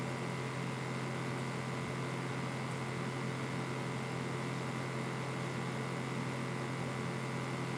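Steady low electrical hum with a hiss, unchanging throughout, from an idle audio setup with no music playing.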